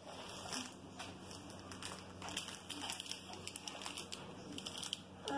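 Plastic grocery packaging rustling and crinkling in irregular bursts as it is handled, over a faint steady low hum.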